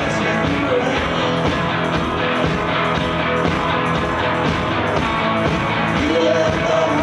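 Live rock and roll band playing: electric guitar over a steady beat, with a man singing into the microphone.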